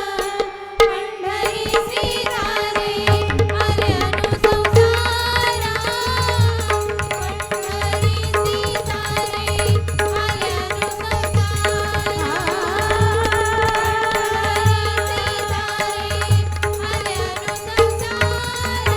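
Indian devotional vocal music: a singer holds long, gliding lines over a steady drone, with tabla and pakhawaj playing a regular rhythm of deep drum strokes.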